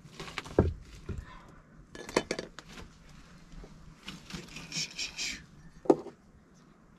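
Metal cooking pot and utensils clinking and knocking as they are handled, in short irregular clusters, with one sharp knock near the end.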